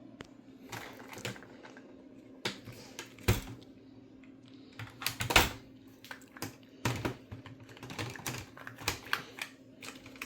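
Irregular clicks and clacks of a Cherry-switch mechanical keyboard being handled, some keys pressed, at uneven intervals with the loudest clack about halfway through.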